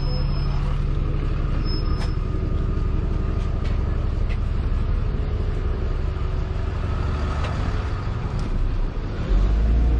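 Steady low rumble of outdoor background noise, with a louder, deeper rumble in the last second.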